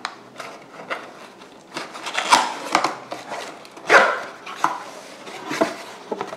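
Cardboard box handled and its tuck flap pulled open: scraping, rustling and knocks, loudest about two seconds in and again about four seconds in.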